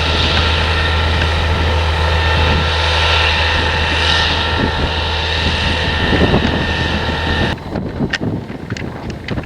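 Heavy farm machinery engine running steadily under load, a loud low drone. About three-quarters of the way through it cuts off abruptly, leaving a quieter, uneven sound with a few sharp clicks.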